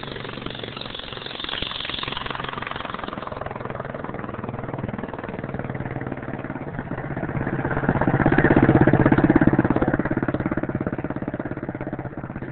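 Small 5 hp engine of a McLean monocycle running steadily. It swells louder for about two seconds, starting around eight seconds in, then eases back.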